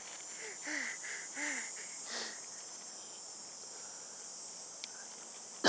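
Steady high-pitched chirring of insects in the grass, with a few short rising-and-falling sounds from a small voice in the first two seconds.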